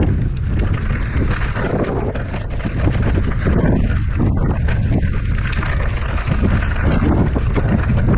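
Wind rumbling on the microphone of a mountain bike rolling fast down a rocky dirt trail, with frequent knocks and clatter from the tyres and bike jolting over the rocks.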